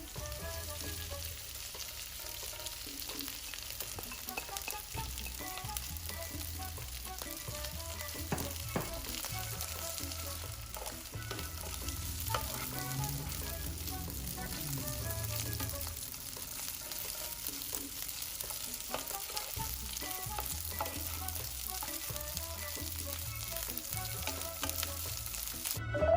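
Food stir-frying in a hot pan: a steady sizzle with scattered clicks and scrapes of a utensil stirring it.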